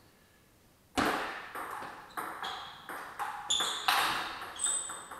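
Table tennis rally: a celluloid-type ball clicking off the paddles and bouncing on the table, a quick run of sharp pings starting about a second in.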